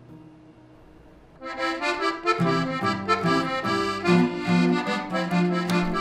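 Background music: a melody of held notes on a reed-like instrument begins about a second and a half in, after a faint fading note.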